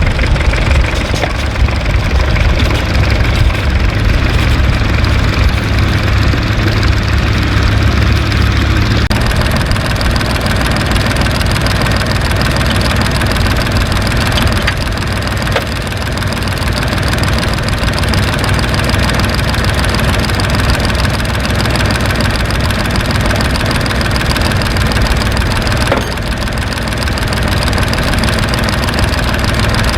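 Engine running steadily close by, with a strong low rumble that eases about a third of the way in.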